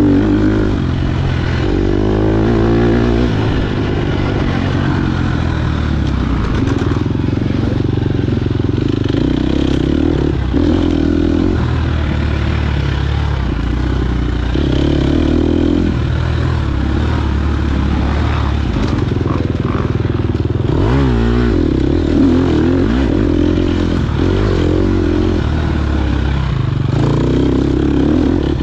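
KTM 250 XC-F four-stroke dirt bike engine under race load, its revs rising and falling over and over as the throttle is worked, with sharp rises in revs about two seconds in and again around twenty-one seconds.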